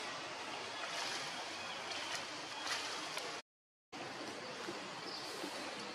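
Steady rushing outdoor background noise, with a few faint ticks or rustles. It cuts out completely for about half a second a little past the middle, at an edit.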